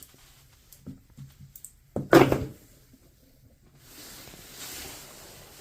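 A few light clicks, then one loud metal clunk about two seconds in as the painted stator of a Kaabo Wolf King GT hub motor is set inside the rusted motor shell, followed by faint handling noise.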